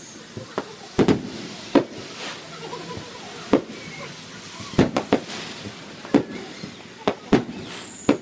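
Aerial fireworks display: shells bursting overhead in about a dozen sharp bangs at uneven intervals, some coming in quick runs of two or three.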